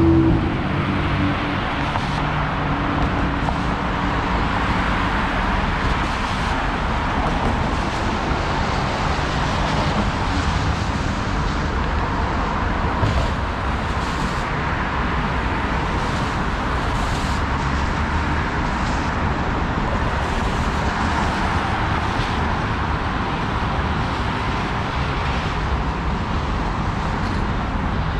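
Steady city street traffic: cars driving by on a wet road, with a vehicle's engine hum near the start.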